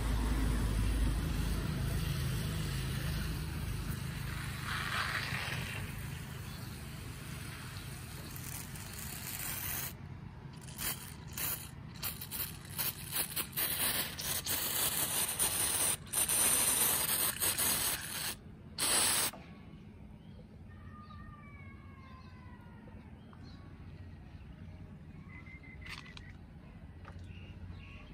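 Hand pump sprayer misting water onto a potted seedling's soil: a steady hiss, then broken short bursts and rattles that stop about two-thirds of the way through.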